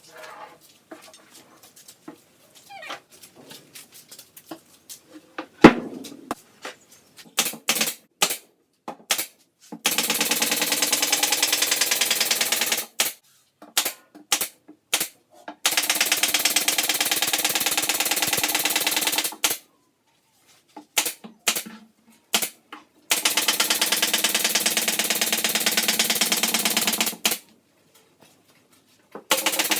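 Power tool running in several bursts of a few seconds each with a rapid, even rattle, with scattered clicks and a sharp knock between them.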